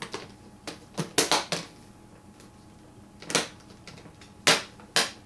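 Plastic laptop screen bezel being pressed back onto the lid, its snap-fit clips clicking into place: about nine sharp clicks, several in a quick run about a second in and single louder snaps later on.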